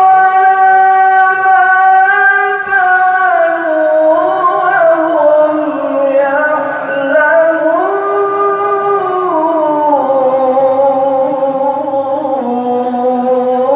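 A qari's voice in one long melodic phrase of Quran recitation, drawing out a single syllable with ornamented turns. The pitch steps gradually lower toward the end.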